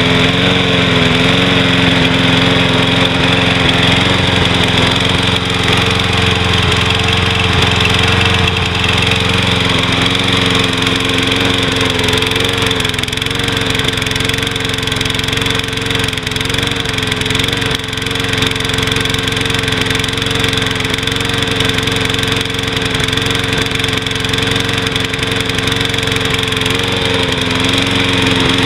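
Troy-Bilt push mower's Briggs & Stratton 675 series single-cylinder engine running steadily, its pitch wavering slightly. It runs with a slight skip, an engine miss that the owner puts down to oil-contaminated fuel or a linkage and carburetor still fouled with oil.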